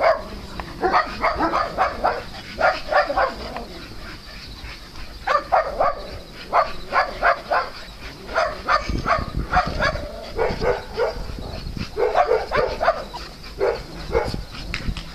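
Dogs barking in quick runs of short, sharp barks, with brief pauses between the runs.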